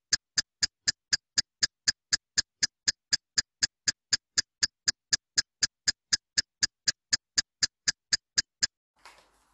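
Ticking countdown-timer sound effect: even, sharp ticks about four a second, stopping abruptly near the end as the countdown runs out.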